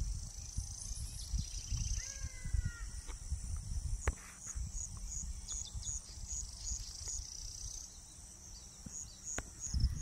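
Insects buzzing steadily at a high pitch, turning to a pulsing chirp of about three a second in the second half, over a low rumble of wind on the microphone. A single short, slightly falling bird call comes about two seconds in.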